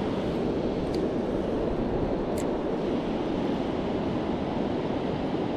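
Steady rushing of creek water flowing over rocks and through the current.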